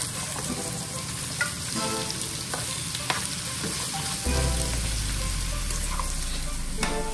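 Diced pumpkin frying in hot oil with onion and garlic, giving a steady sizzle. A metal spoon stirs and scrapes the pieces around a nonstick pot, with a few clicks against its side.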